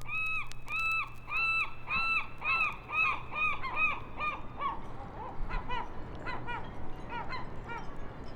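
Geese honking: a run of short calls, about two a second, that grow fainter and more scattered in the second half. A low steady hum lies underneath for the first half.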